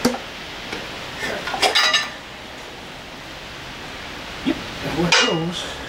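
Metal outboard motor parts clinking and clattering as they are handled and fitted into the open lower cowling: a sharp click at the start, a quick cluster of clinks about a second and a half in, and more handling noise near the end.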